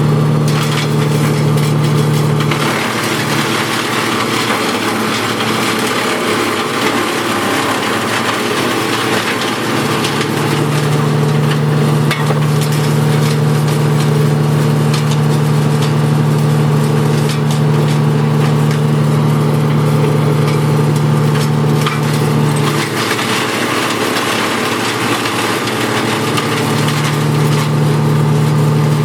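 Wood chipper running with its engine humming steadily while wood is fed through and shredded, a continuous crackling and splintering over the engine. The engine tone eases off twice, about three seconds in and again a little before the end, then comes back.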